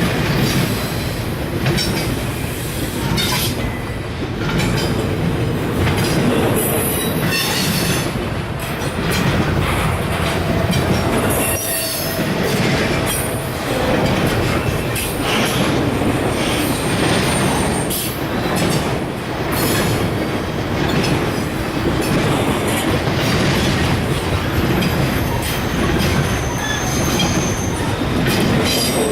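Freight cars of a CSX train rolling steadily past, steel wheels clattering over rail joints, with a few brief high-pitched wheel squeals.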